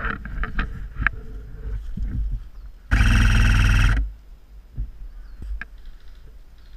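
Airsoft electric gun firing one full-auto burst of about a second, a loud even buzzing rattle from the gearbox cycling. Scattered clicks and rustles of gear and footsteps come before it.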